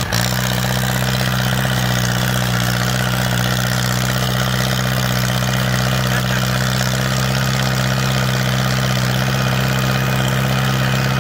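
Small vintage farm tractor's engine running at a steady speed as the tractor drives along.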